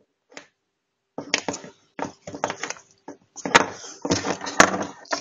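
Close handling noise: a small plastic Littlest Pet Shop figurine is rubbed, shifted and knocked by fingers right at the microphone, in a run of short scrapes and rustles with two sharp clicks about halfway through.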